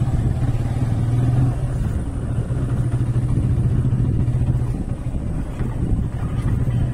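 Motorcycle engine running steadily while the bike is ridden slowly over a dirt track. The engine note dips briefly about five seconds in, then picks up again.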